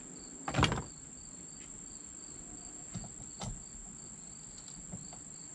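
Insects, crickets, chirping in a steady high pulsing drone. About half a second in comes one sharp knock, and around three seconds in two lighter clicks, as the metal and plastic parts of a camera mount are handled and fitted.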